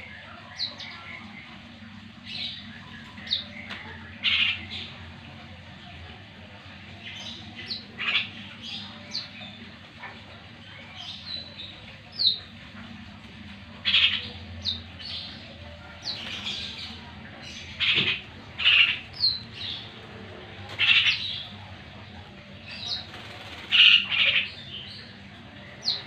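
Caged black-naped orioles calling: scattered short harsh squawks and brief high notes sliding down, coming in clusters and loudest near the end, over a low steady hum.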